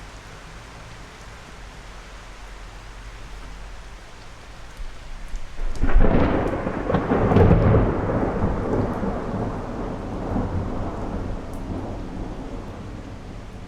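Steady rain with a thunderclap: the thunder builds about five seconds in, cracks loudly near six seconds and rolls on as a long rumble that slowly dies away.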